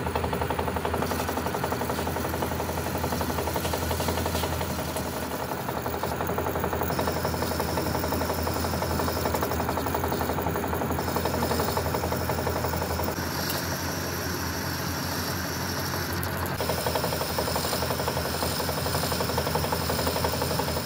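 A workshop machine running steadily with a strong low hum. Its higher sound changes a few times along the way.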